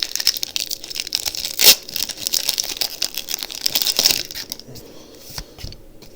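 Foil Pokémon TCG booster pack wrapper being torn open and crinkled, with one loud rip about a second and a half in. The crinkling dies down to a few quiet taps and rustles after about four seconds.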